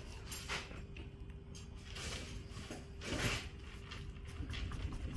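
Soft rustling and scraping of butcher's string being drawn around and pulled tight on a leg of lamb, with hands pressing on the meat, the loudest stretch about three seconds in. A faint steady hum runs underneath.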